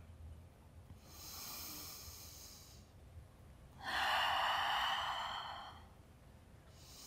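A woman breathing slowly and deeply: a soft inhale about a second in, then a longer, louder exhale about four seconds in, with the next breath starting faintly near the end.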